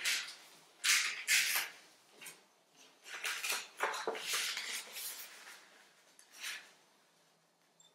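A sheet of paper being folded and creased by hand on a tabletop: a series of short, crisp rustles and crinkles. They come thickly in the first half, then once more near the end and more softly.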